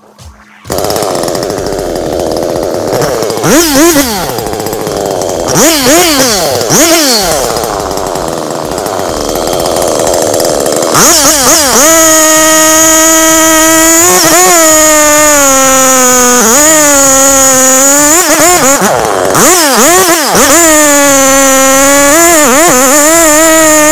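Two-stroke chainsaw cutting into the base of a hardwood tree. It comes in about a second in and is revved in several short blips. From about halfway it runs at full throttle in the cut, its pitch sagging and recovering several times as the chain loads up in the wood.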